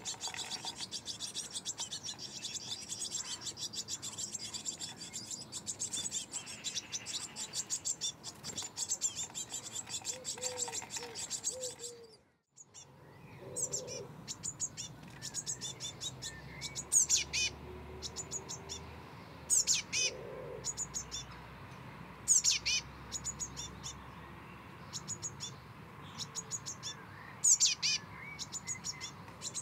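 Blue tit nestlings begging inside a nest box: a dense, rapid, high-pitched chirping. It breaks off about twelve seconds in, then comes back in shorter bursts, with a few louder falling calls standing out.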